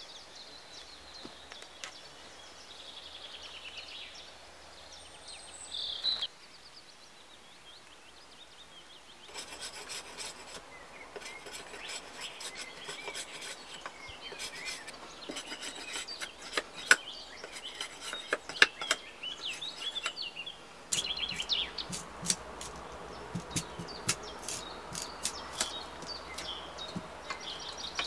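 A blade shaving and scraping a wooden stick in quick, irregular strokes, with sharp clicks as it bites the wood. Birds chirp now and then in the first few seconds.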